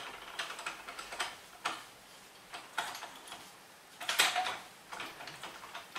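Yamaha Zuma 125 four-stroke single-cylinder scooter engine, fitted with a big bore kit and its head bolted only hand-tight, turned over slowly by hand at the flywheel: the cam chain, sprocket and valve train give a string of light, irregular clicks and ticks, with a few louder clacks. It turns freely with nothing binding.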